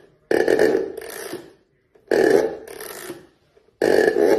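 Animatronic toy bulldogs giving electronic barking noises through their small speakers, three identical-sounding bursts that each start abruptly and fade over about a second.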